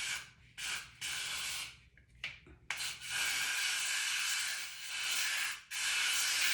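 Got2b aerosol hairspray can hissing in a series of short sprays and one longer spray of about two seconds, sprayed close along a lace-front wig's hairline to hold the lace down without glue.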